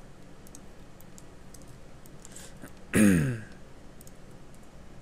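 Faint, scattered clicks of a computer mouse and its scroll wheel. About three seconds in, a man gives a short hum that falls in pitch.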